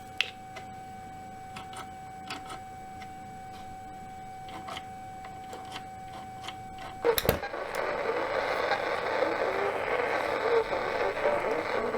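Ham transceiver's steady CW sidetone while the key is held down, with faint scattered ticks; it stops with a click about seven seconds in. Louder receiver hiss and band noise then comes through the speaker, the loudness that shows the magnetic loop antenna is tuned to the frequency.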